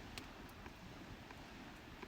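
Wood campfire burning, faint, with a low steady rush and small sharp crackles and pops every few tenths of a second.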